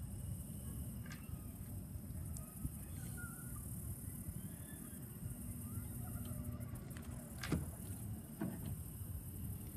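Outdoor ambience at the water's edge: a steady low rumble with a constant high hiss, and two sharp clicks about a second apart near the end.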